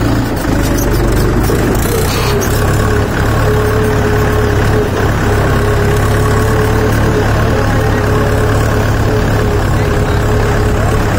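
Mahindra 575 DI XP Plus tractor's four-cylinder diesel engine running steadily while the tractor is driven slowly, heard close up from the driver's seat, with a steady higher whine over the engine note through most of it.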